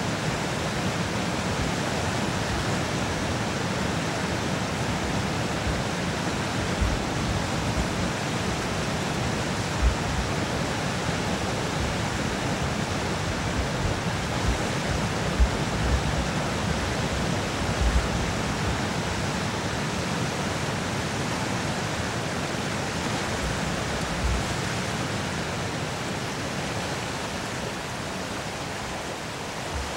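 Rushing white water from the rapids below a dam, a steady, dense roar of churning water with a few brief low thumps. It grows a little fainter near the end.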